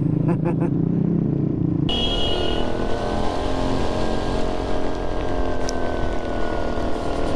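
Motorcycle engine running under the rider at low speed. About two seconds in, the sound changes abruptly to riding on a wet road in the rain: the engine carries on under a steady hiss of tyres on wet pavement and rain.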